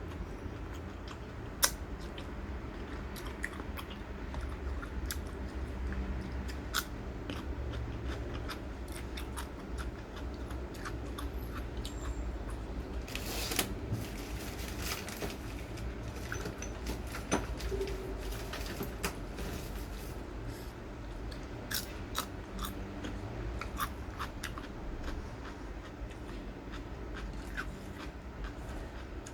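A person chewing crunchy food with open, wet mouth sounds, broken by irregular sharp crunches.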